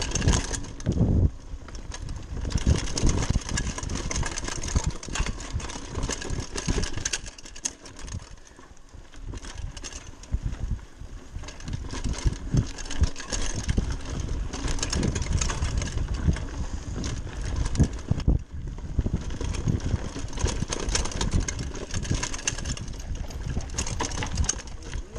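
A Giant Talon 3 29er hardtail mountain bike riding over a dirt forest trail, heard from a camera on the bike: tyres rumbling over the ground and the bike rattling and knocking over bumps and roots. It quietens for a few seconds about a third of the way through, then picks up again.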